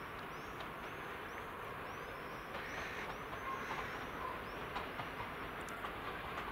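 Distant TEP70BS diesel locomotive hauling a passenger train as it approaches, a steady low rumble of engine and wheels. Over it a small bird chirps repeatedly in quick, high calls, mostly in the first half.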